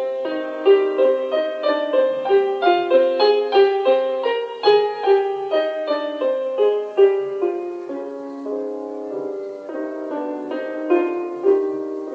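A short instrumental music interlude on solo piano: a flowing line of single notes that grows softer and sparser after about eight seconds.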